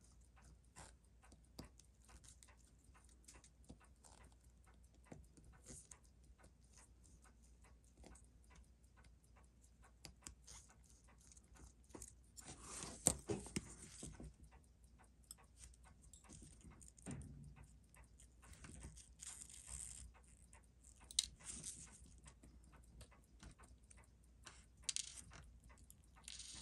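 Faint, irregular small clicks and taps of watchmaker's tools and small parts being handled on a workbench, with a few louder clattering rustles about halfway through and again near the end.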